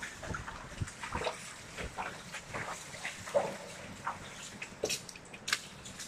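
Footsteps splashing and scuffing through shallow water on a culvert floor, irregular, about two steps a second.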